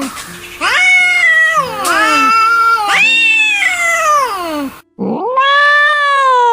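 Angry cats yowling: a run of long, drawn-out wails, each rising in pitch and then sliding down low, one after another.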